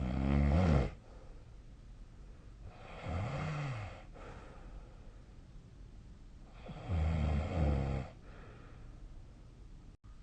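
A sleeping person snoring: three snores a few seconds apart. The first and last are loud, and the middle one is softer and rises then falls in pitch.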